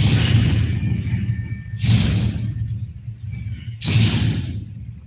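Loud hits about every two seconds, each fading out quickly, over a steady low rumble, from a taekwondo team's synchronized stage demonstration.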